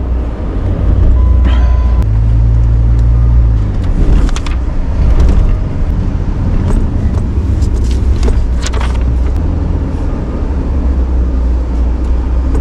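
Truck engine running as the truck drives, a loud low rumble whose note rises for a second or two about two seconds in, with scattered knocks and rattles.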